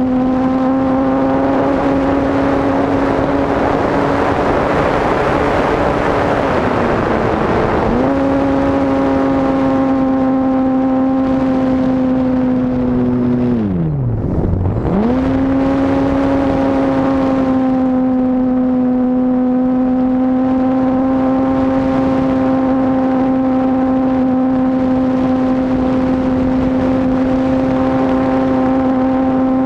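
RC model airplane's motor and propeller running as a steady whine on the onboard camera, with wind rushing past in a dive over the first several seconds. About halfway through, the pitch falls steeply and climbs straight back to full speed: the throttle is chopped and opened again.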